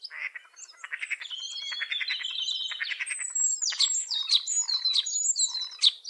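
European starling singing: a fast rattling run of clicks for the first few seconds, then a string of squeaky, gliding high whistles.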